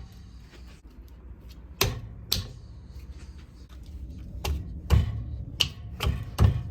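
Metal tools and parts clinking and knocking as they are handled: about seven sharp, irregular clicks and clanks, the loudest in the second half.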